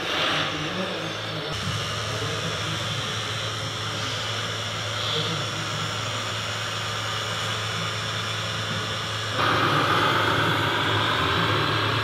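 Radio-controlled MAN tipper truck running with a steady engine-like hum; about nine seconds in it gets louder with a rising whine as the truck drives off.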